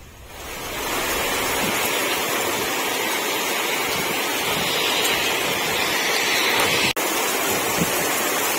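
Steady rushing of water from a flood, fading in over the first second, with a brief cut in the sound about seven seconds in.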